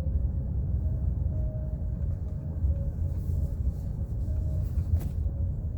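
Low, irregular rumble of wind buffeting the microphone, with one sharp click about five seconds in.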